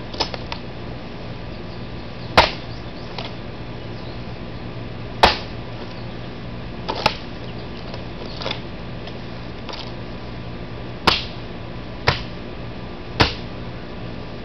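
Bicycle helmet shell being struck with a long-handled sledgehammer: a string of sharp cracks, spaced irregularly one to three seconds apart, the loudest a couple of seconds in.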